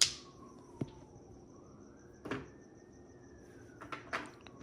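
Mahjong tiles clicking as they are set down and moved on the table: a sharp clack at the start, lighter knocks about two seconds in, and a quick run of clicks near the end.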